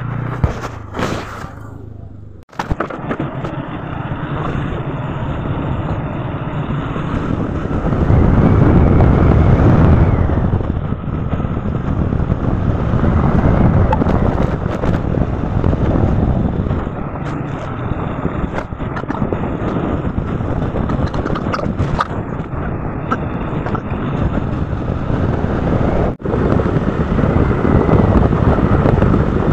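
Steady road and wind noise from a moving vehicle, with a low rumble that swells and eases, loudest about eight to ten seconds in. A short break about two and a half seconds in.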